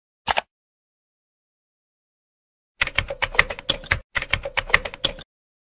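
A single sharp click, then a computer keyboard being typed on in a quick run of keystrokes for about two and a half seconds, with a brief break midway, as a password is entered.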